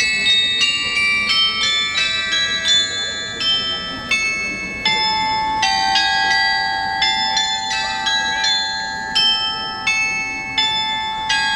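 Tuned bells struck in a quick melody, each note ringing on and overlapping the next, with a few lower notes held under the high ones.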